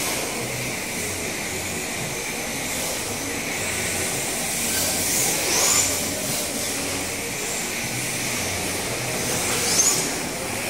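Electric RC drift cars running on an indoor track: a steady hiss of small motors and tyres on the smooth floor, with short rising whines as a car speeds up, about five seconds in and again near the end.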